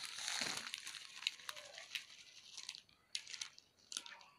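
Plastic mailer bag crinkling and rustling as it is handled, with scattered sharp crackles that thin out toward the end.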